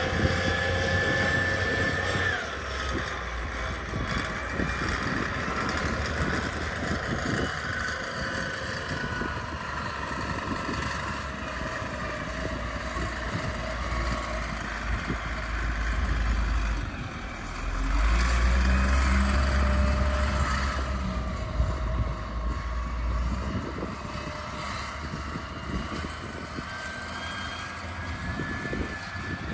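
A motor engine running steadily, its pitch gliding up and down, with a heavier low rumble for several seconds past the middle.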